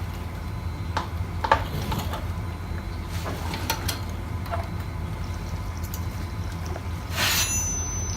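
Motorcycle rear fender being worked into place: a few light knocks and clicks as its lugs are pushed into their slots, then a short scraping rustle near the end, over a steady low hum.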